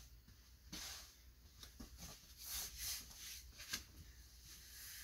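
Faint rustling and a few soft thumps as a person gets down onto an exercise mat and settles face down on it.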